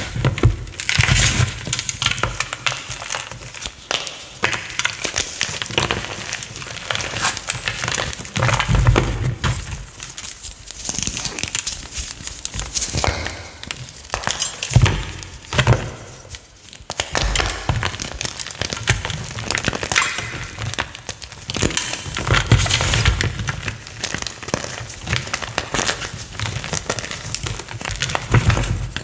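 Crunchy chalk being crushed and crumbled: a dense, irregular run of small cracks and crunches, with heavier dull thumps every few seconds.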